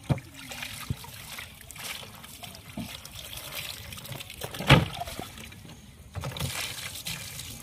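Water poured from a mug and trickling over a grey mullet as it is rubbed clean by hand, with wet splashing and dribbling. A single sharp knock about halfway through is the loudest sound.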